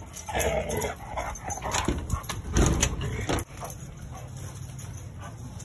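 Dogs at play with a ball, one dog vocalising in loud, irregular sounds for the first three and a half seconds, after which it drops to a steadier, quieter background.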